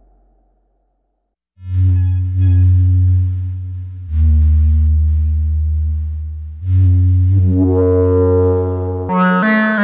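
Musonics Vanilla 5U modular synthesizer playing three long, deep bass notes of about two and a half seconds each after a moment of silence. The third note grows brighter as a knob is turned. Near the end it jumps to higher, brighter notes.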